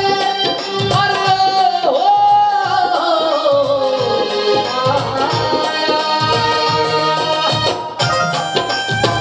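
Bengali folk song performed live: a man sings a long held note that slides slowly downward, over keyboard and a steady hand-drum beat.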